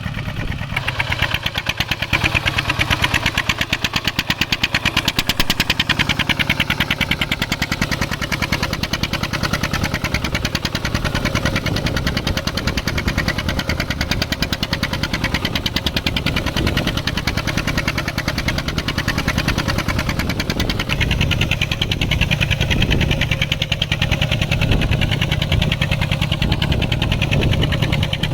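Mini farm tractor's engine running steadily with a fast, even beat of firing pulses while it pulls a plow.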